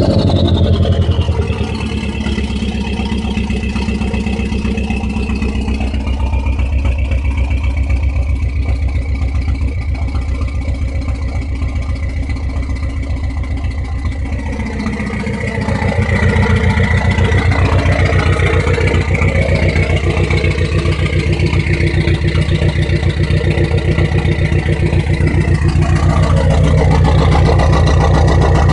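Dodge SRT-4's turbocharged 2.4-litre four-cylinder engine idling, its uneven idle the owner's worry about a rough idle. A high whine falls away in pitch in the first second or so, and about fifteen seconds in the idle note shifts and gets a little louder.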